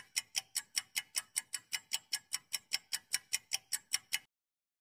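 Clock-style ticking sound effect of a quiz countdown timer, even and fast at about five ticks a second, stopping abruptly near the end.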